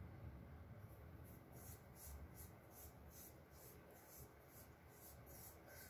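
Faint, repeated soft rubbing strokes, a few a second: fingertips spreading a petroleum jelly and baking soda paste over skin.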